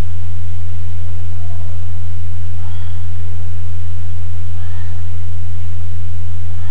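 A loud, steady low hum with a few steady higher overtones, unchanged throughout, of the kind a recording picks up as electrical hum.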